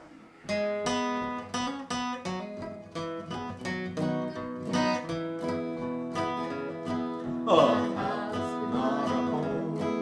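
Two acoustic guitars playing the intro of a country gospel song, picked notes over chords. A singing voice comes in a little past halfway.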